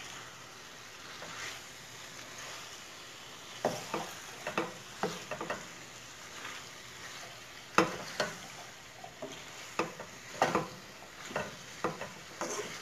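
Wooden spatula stirring cubed turnips through frying masala in a stainless steel pot: irregular knocks and scrapes against the pot over a faint steady sizzle.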